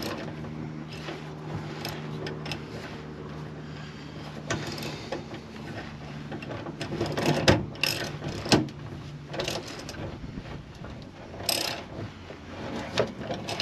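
Socket wrench winding up the winch of a Fiat Ducato underslung spare wheel carrier, with clicking from the wrench and winch and irregular knocks as the wheel is drawn up under the chassis. The knocks are loudest a little past halfway. A steady low hum runs under the first half and fades out.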